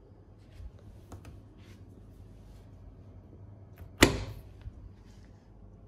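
Door hardware on a glazed back door being worked by hand: a few small clicks and rustles, then one sharp, loud clunk about four seconds in as the door is unbolted and opened.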